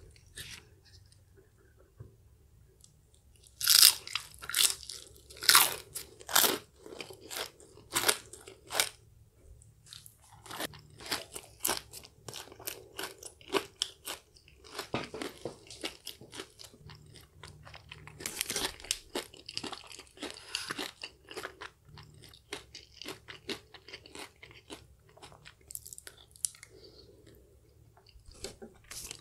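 Close-miked crunching bites and chewing of crispy battered fried chicken. A few loud, sharp crunches come about four seconds in, then a long run of softer, rapid crunching as the coating is chewed.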